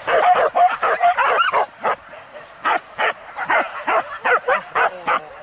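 Pack of boar-hunting dogs barking and yelping, a dense overlapping burst for the first second and a half, then single barks about three a second.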